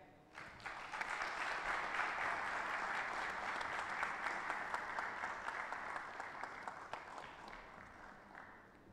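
Audience applause, many people clapping: it builds up within the first second, holds steady, then slowly dies away over the last few seconds.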